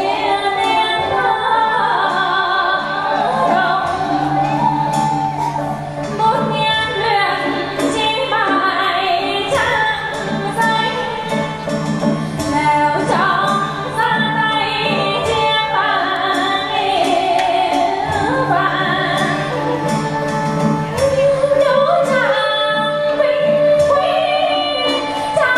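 Live traditional Vietnamese music for water puppetry: a woman singing a wavering melody with vibrato, over a steady low held note and sharp percussion strikes.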